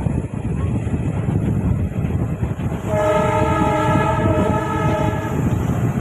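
Passenger coaches running on the track, a steady rumble with wheel clatter, and an EMD diesel locomotive's horn sounding one steady, unwavering blast of about two and a half seconds, starting about three seconds in.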